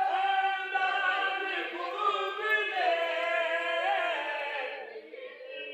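A group of voices singing together without instruments, holding long notes that slide in pitch, fading near the end.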